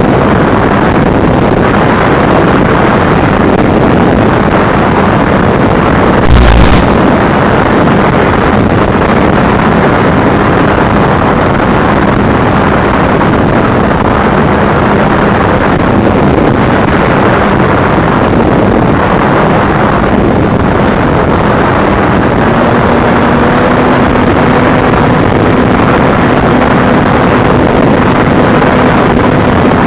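FPV drone in flight: a steady rush of wind on the microphone over a faint, even motor whine that steps up slightly about two-thirds of the way through. A single short thump comes about six seconds in.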